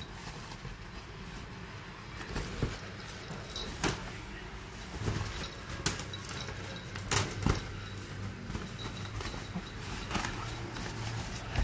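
Small dogs playing around a nylon pet tunnel: scattered knocks and clicks from paws on the tile floor and the tunnel's fabric being pushed about.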